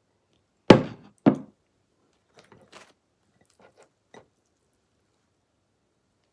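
Two sharp knocks of tableware being set down on a table, about half a second apart, followed by a few faint light clicks.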